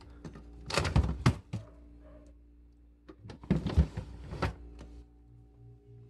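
Plastic refrigerator freezer drawers pulled open by hand: two bouts of sliding and thunking, about a second in and again about three and a half seconds in.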